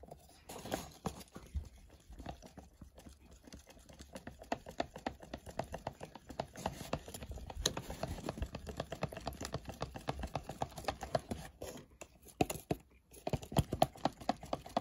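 A stirring stick scraping and clicking against the sides of a clear plastic mixing cup as a drop of brown tint is mixed into two-part resin: a quick run of small knocks and scrapes, with a brief pause near the end.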